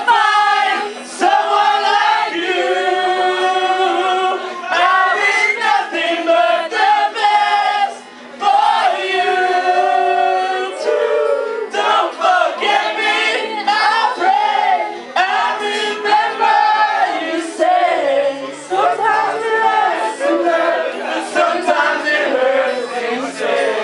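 Voices singing and vocalising together without clear words, in long held notes and sliding pitches that overlap. The singing drops out briefly about eight seconds in.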